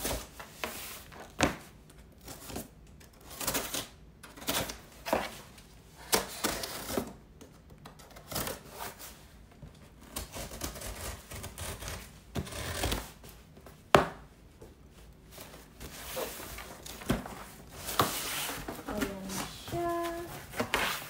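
Scissors cutting through the packing tape of a cardboard shipping box, an irregular string of scrapes, snips and tape tearing, with one sharp loud knock about two-thirds of the way through. Near the end the cardboard flaps are pulled open.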